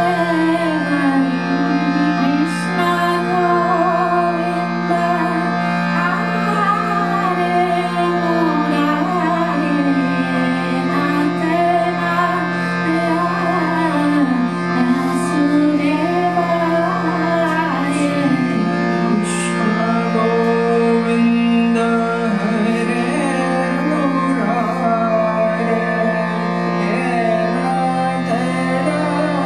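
Kirtan: a voice singing a slow, winding devotional melody over the steady, held drone of a harmonium.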